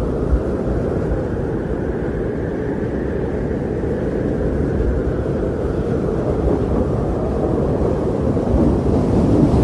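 Strong blizzard wind blowing as a steady, deep rushing noise, swelling a little near the end.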